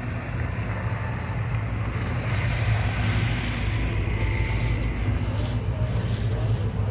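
Outboard motor running steadily as the boat cruises, with wind buffeting the microphone and water rushing past the hull.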